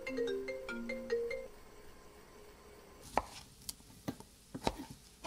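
A short tune of single notes that stops about a second and a half in. Then a kitchen knife chops tomato on a plastic cutting board: about five sharp chops.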